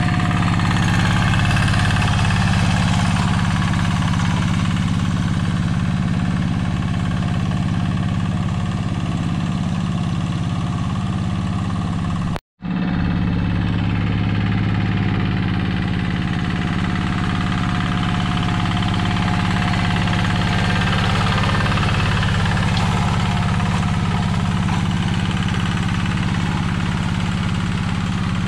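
Yanmar two-wheel hand tractor's single-cylinder diesel engine running steadily under load as it plows a flooded rice paddy. The sound drops out for a moment near the middle.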